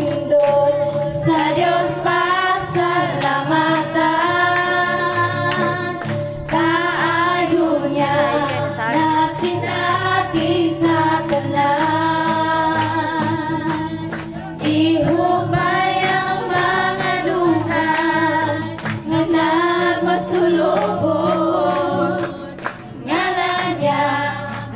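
A Cebuano gospel praise song playing, a group of voices singing a melody over music with a steady bass.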